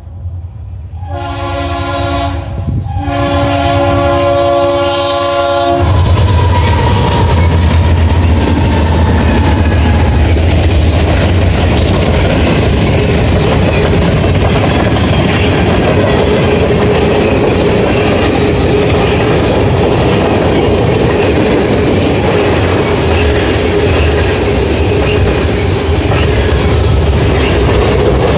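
Approaching GE diesel freight locomotives (a CN Dash 8 and an NS Dash 9) sounding their multi-chime air horn in blasts, the last and longest ending about six seconds in. Their diesel engines then rumble past, and the freight cars follow, rolling by steadily with a clickety-clack of wheels over the rail joints.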